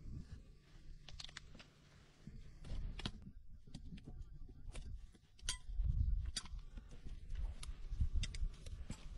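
Hoof knife paring the sole of a Shire horse's rear hoof: irregular crisp clicks and scrapes as the blade cuts through the horn, over a low rumble.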